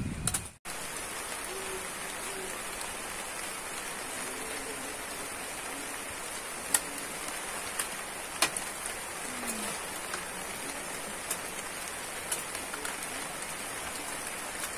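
Light rain falling as a steady fine hiss, with now and then the sharp tap of a single drop.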